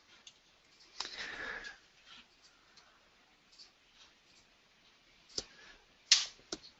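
Faint sounds at a presenter's microphone: a short breath about a second in, then three sharp clicks near the end, the second of them the loudest.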